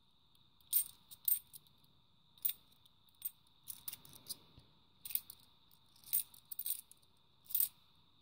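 Cupronickel 50p coins clinking against each other as they are shuffled and slid apart in the hand: about a dozen light, sharp metallic clinks at uneven intervals.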